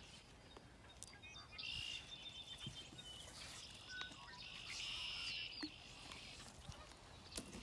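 Red-winged blackbirds singing: two songs, each a few short notes and then a buzzy trill lasting about a second, one about two seconds in and one about five seconds in.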